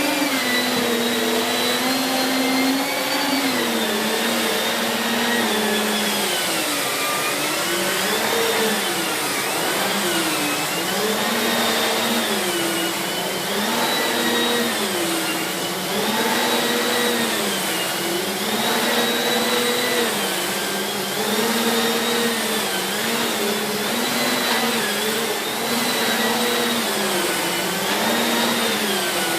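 Siemens Z6.0 Power 2500W bagged cylinder vacuum cleaner running at full power, its motor pitch dipping and rising every second or two as the floor tool is worked back and forth and the suction loads and frees.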